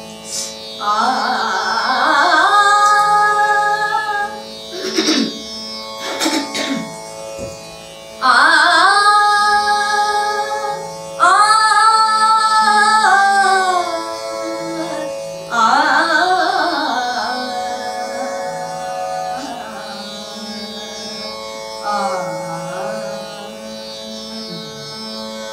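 A woman singing a Hindustani classical bandish in raag Vrindavani Sarang, in several phrases of long held notes with sliding ornaments, over the steady drone of an electronic tanpura.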